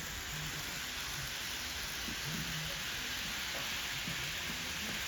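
Steady, even hiss, with faint voices murmuring in the background.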